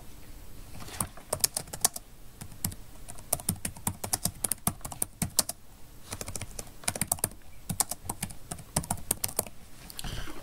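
Typing on a computer keyboard: several quick runs of keystrokes with short pauses between them, as a file name is entered.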